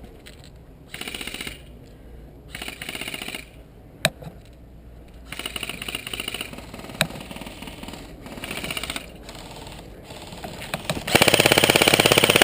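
Airsoft guns firing on full auto in rapid bursts: about five bursts with a few single sharp cracks between, the longest and loudest burst close by near the end.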